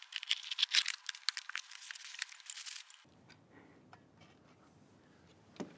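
Cardboard box and its packing being opened at fast-forward speed: a rapid, thin, high-pitched crackle of tearing and crinkling for about three seconds. It then drops to quiet room tone with a few faint taps and one sharper click near the end.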